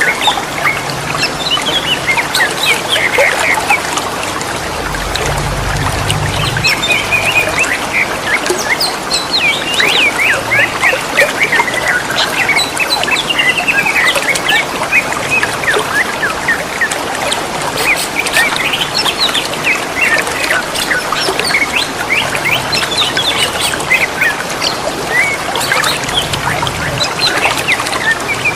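Green leafbirds (cucak ijo) singing and answering one another with quick chirps and whistled phrases throughout, over the steady trickle of running water.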